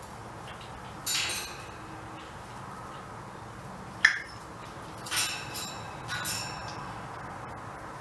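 A few short, sharp clicks and high squeaks from a caged African grey parrot, spaced out with quiet between: one about a second in, a sharp click about four seconds in, and a small cluster around five to six seconds in.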